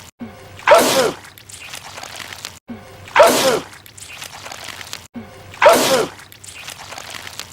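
A man sneezing three times, the same sneeze repeated about every two and a half seconds as a loop. Each is a sudden loud burst whose pitch falls away.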